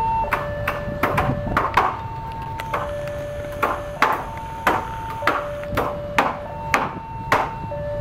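Level-crossing warning siren sounding a steady two-pitch alternating tone, low and high, switching about once a second. Over it come repeated sharp knocks, about a dozen spread irregularly, which are the loudest sounds.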